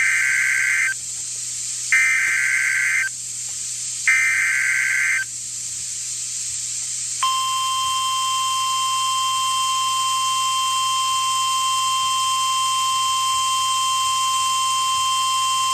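Emergency Alert System SAME header: three screeching digital data bursts about two seconds apart, then, about seven seconds in, a long steady single-pitch attention tone. Together they signal the start of a severe thunderstorm warning.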